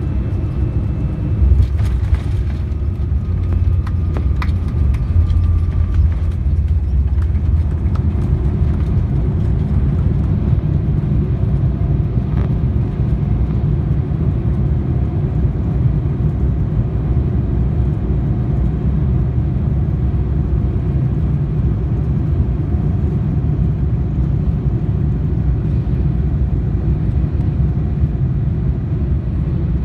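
Cabin noise of a Boeing 787-9 rolling out on the runway after landing, with the engine's thrust reversers deployed: a steady low rumble from the engines and wheels, heaviest in the first few seconds, with a few light knocks and rattles.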